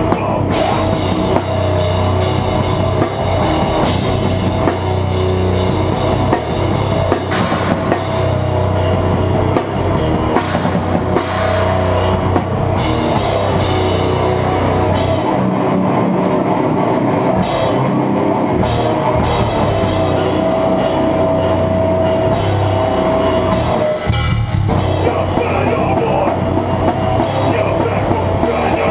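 Hardcore band playing live: heavy music driven by a drum kit with cymbals, loud and unbroken apart from a short break late on.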